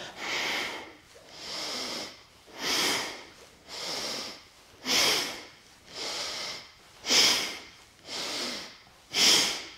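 A woman breathing strongly and audibly, in and out about once a second, nine breaths in all, paced to the arching and rounding of a seated spinal flex. Every other breath is louder.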